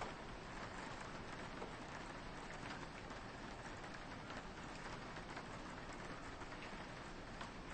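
Soft, steady rain pattering on a window, with many small individual drop taps over a constant hiss.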